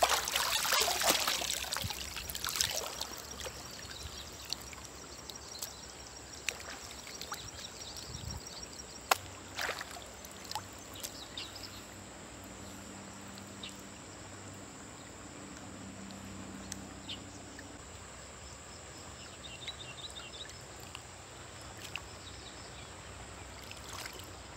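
River water splashing and dripping as a gill net is handled and a tilapia is freed from its mesh, loudest in the first couple of seconds, then a low steady wash with a few drips.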